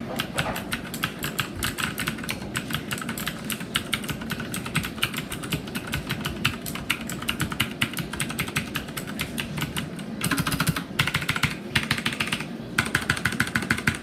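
Fast typing on a Sades K10 mechanical keyboard with clicky Cherry MX Blue clone switches: a continuous clatter of key clicks, picked up by a camera's built-in microphone. Near the end come two faster, louder flurries of clicks.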